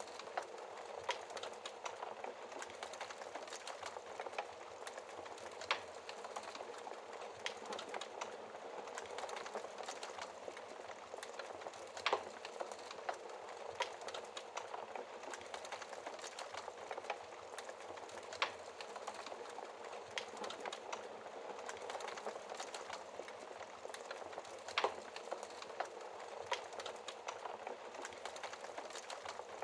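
Wood fire burning: a steady soft hiss with constant small crackles and a sharper pop about every six seconds.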